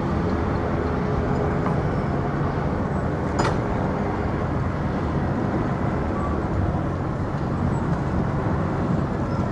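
Steady city street noise of road traffic running past, with a single brief click about three and a half seconds in.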